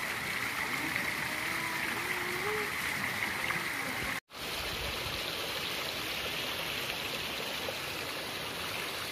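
Hot spring water pouring and splashing steadily from a stone fountain and outlet pipe into a tiled bathing pool. The sound drops out for an instant a little over four seconds in, then carries on.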